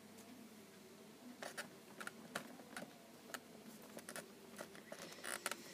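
Faint, scattered clicks and taps of a hand handling a plastic talking Rex toy.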